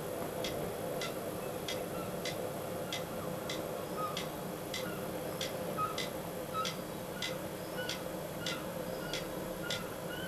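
Clock ticking steadily, about two ticks a second, over a steady low background hum.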